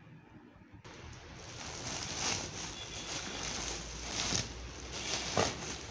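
Plastic courier mailer and clear plastic wrap rustling and crinkling as a teddy bear is pulled out, beginning about a second in.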